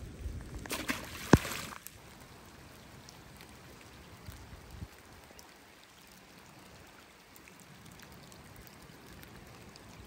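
A fish slipped back into the river with a splash and a sharp knock in the first two seconds, then steady, faint rain falling on the flowing river.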